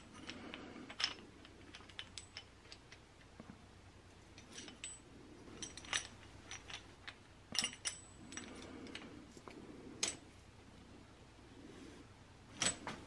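Light metallic clicks and clinks, scattered irregularly, with soft rustling between them, as the coil spring and its collar are handled and turned by hand on a Kawasaki KX100 dirt-bike rear shock.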